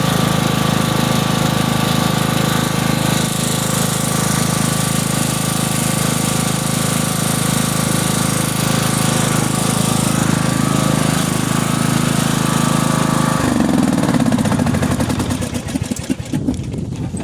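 Riding lawn mower engine running steadily, then switched off about thirteen seconds in, its pitch falling as it winds down to a stop over a couple of seconds.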